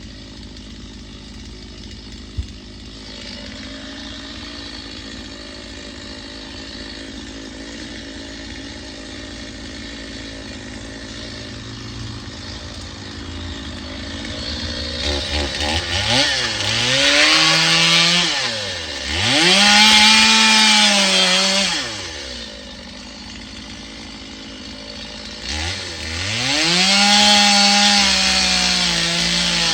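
Chainsaw running at idle, then taken up to high revs in three bursts, the pitch climbing, holding and dropping back each time.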